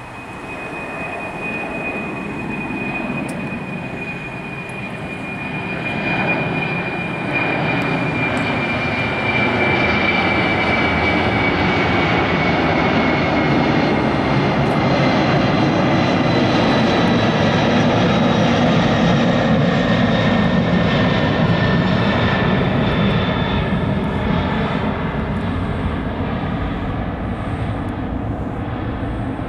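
Boeing 747-400's four turbofan engines at climb thrust just after takeoff. The jet roar builds over the first several seconds and then holds, with a high whine that slowly falls in pitch as the airliner climbs past.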